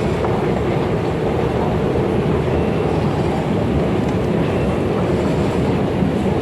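Steady, loud rumble of an underground railway station heard from a descending escalator, with no distinct events.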